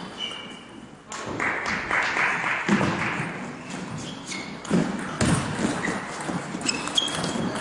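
A table tennis ball being hit back and forth in a rally, with a series of sharp clicks and taps from the ball striking the paddles and the table.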